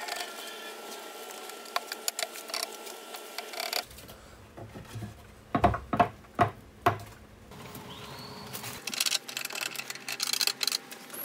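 Hands working a glued-up lamination of 2x4 boards in pipe clamps: light clicks and taps, then about five hard wooden knocks in the middle as the boards are pressed into line, then quick metallic clicking and rattling from the pipe clamps being adjusted and tightened.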